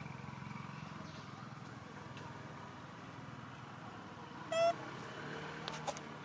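A macaque gives one short, high squeak about four and a half seconds in, over a steady low rumble, with a couple of faint clicks just after.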